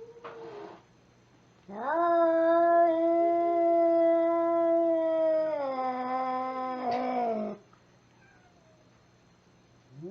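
An agitated cat giving one long, drawn-out yowl of about six seconds, its pitch dropping toward the end, after a short hiss just before it.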